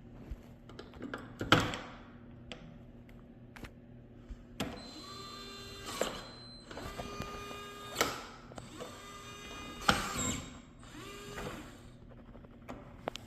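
A few sharp clicks, then a Teeho smart lock's small electric motor whirring in four short runs of about a second each, driving the bolt. Each run starts with a rising pitch, and the first three end in a click.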